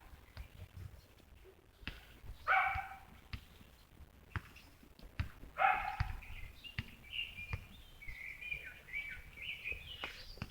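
A dog barks twice, about three seconds apart, then a small bird sings a long run of high chirping notes through the second half.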